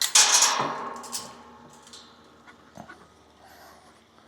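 An animal close to the microphone, making a few loud noisy bursts of breath or snuffling in the first second or so, then quieter.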